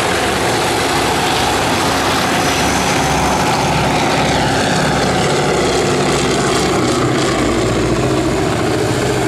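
North American Rockwell OV-10 Bronco's twin Garrett T76 turboprop engines idling on the ground with a steady drone. Partway through, a falling tone sweeps down as another propeller plane flies past low.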